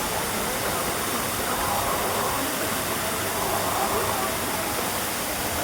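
Waterfall pouring, a steady, even rush of water noise, with faint voices of people underneath.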